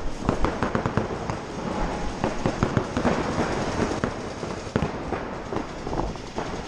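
Paintball markers firing: a rapid, irregular string of sharp pops, several a second.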